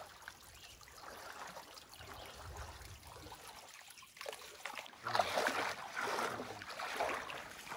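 Small spring trickling down a mossy rock bank into a creek, faint. About five seconds in, louder water sloshing and splashing as a person wades through the creek.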